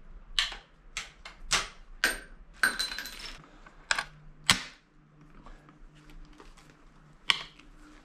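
The action of an 1873 Springfield trapdoor rifle being worked by hand as it is loaded and readied to fire: a run of sharp metallic clicks and clacks with a brief rattle about three seconds in, the loudest clack about halfway through, and one last click near the end.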